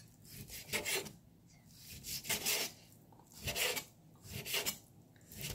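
Chef's knife chopping raw beef brisket into small cubes on a wooden cutting board: gritty rasping cuts with the blade striking the board, in about five quick clusters roughly a second apart.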